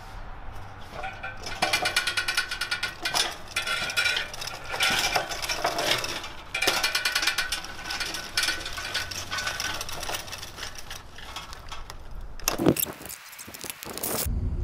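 Caster wheels of a loaded cart rolling over rough asphalt while the metal pipes and fittings of the furnace rig on it rattle and clatter without a break. There is a single loud knock near the end.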